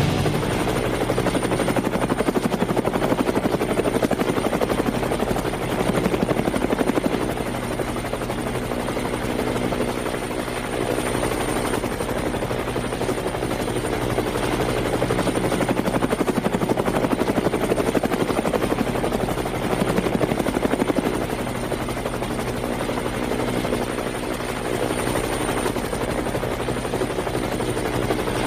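DJI Phantom 3 Advanced quadcopter's propellers and motors humming steadily in flight, a buzz of several fixed pitches with a thin high whine above it.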